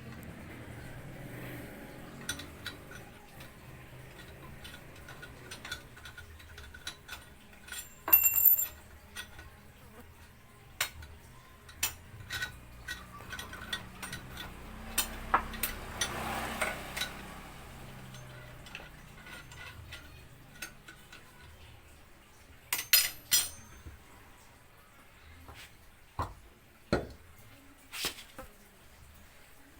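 Scattered metallic clinks and knocks of hand tools against engine parts, with one loud ringing metal strike about eight seconds in and a quick clatter of several hits near the two-thirds mark.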